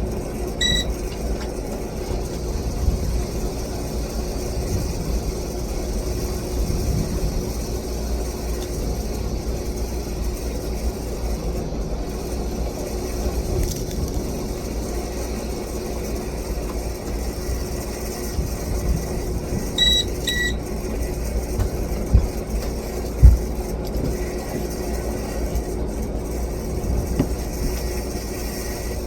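Port Severn ceiling fan running with a steady hum over a low rumble: the unwanted noise the owner is trying to track down and fix. Short electronic beeps sound about a second in and twice around two-thirds of the way through, and a couple of low thumps come soon after.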